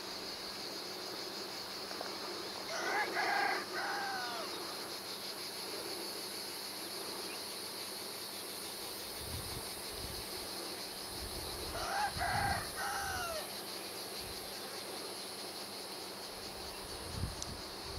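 A rooster crowing twice, about three seconds in and again about twelve seconds in, each crow about a second long, over a steady high insect drone. Low wind rumble on the microphone comes in around the middle and again near the end.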